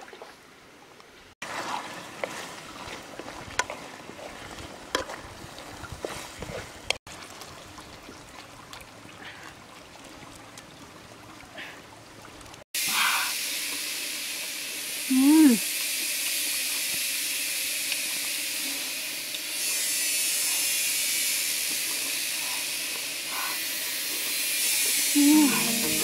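A steady rush of stream water takes up most of the second half, with a woman's short gliding "mm" vocal sounds twice while she eats. Before that come quieter stretches with scattered light clicks and knocks.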